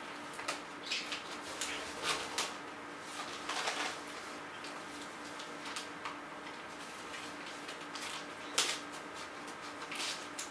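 Scissors snipping through a plastic mailer envelope, with the plastic crinkling as it is handled: a run of short, sharp cuts and rustles, the loudest one near the end, over a faint steady hum.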